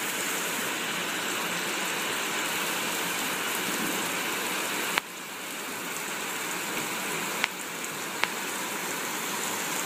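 Heavy rain pouring down in a steady hiss. A sharp click about halfway through is followed by a brief dip in level, and a couple of faint ticks come later.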